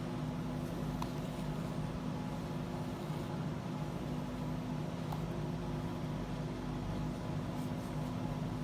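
Whole house fan running steadily, a constant airy rush with a low hum, with a few faint small clicks from beadwork.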